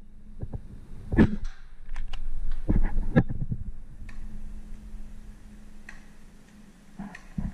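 Paintball markers firing: scattered sharp pops, the loudest about a second in, with a quick cluster around three seconds in and a few fainter ones later.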